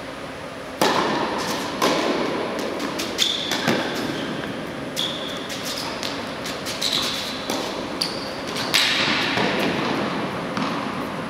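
A tennis rally on an indoor hard court. It opens with a serve struck about a second in, followed by racket hits and ball bounces at irregular intervals, echoing in a large hall. Short high squeaks from sneakers on the court come between the shots.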